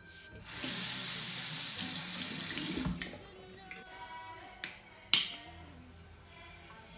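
Bathroom sink tap running in a strong, hissing stream for about two and a half seconds, then shut off. A couple of seconds later come two sharp clicks as the flip-top cap of a plastic skincare tube is snapped open, the second click the louder.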